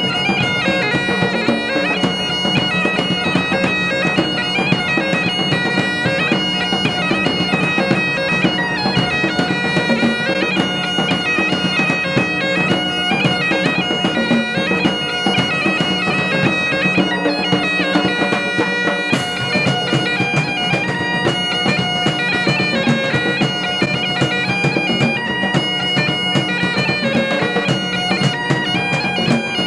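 Bagpipes playing a tune over their steady drone, with drums beating along throughout.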